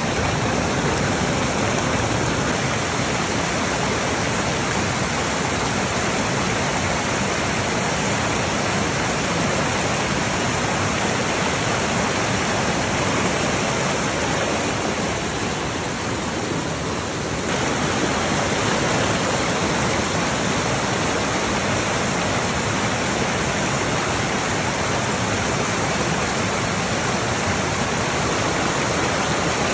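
Water rushing and splashing over rocks in a small rocky cascade: a steady, full rush that dips slightly for a couple of seconds just past the middle.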